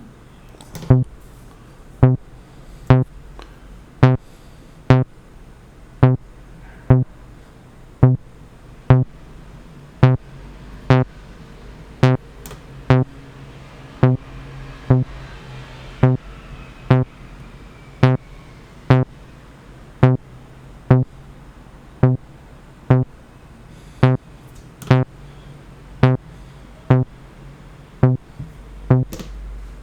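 Vermona PERfourMER MKII analog synthesizer playing a single sequenced low note from its first voice, sent from Maschine and played through the Dirt effect plugin. It is a short, punchy pitched hit with a click at the front, repeating evenly about once a second.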